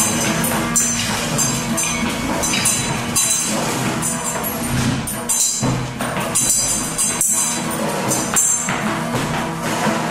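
Free improvised live music: irregular metallic jingling and rattling strokes, several a second, over sustained low guitar tones.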